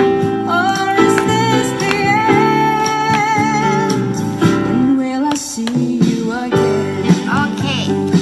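Background music: a pop song with a singing voice over instrumental accompaniment.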